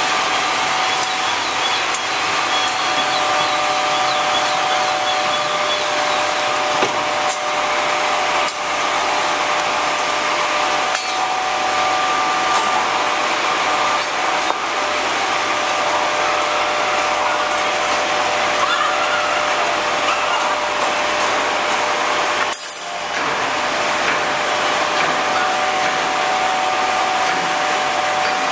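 Steady, loud factory machinery noise with a constant whine, marked by a few sharp knocks; it breaks off briefly about three-quarters of the way through.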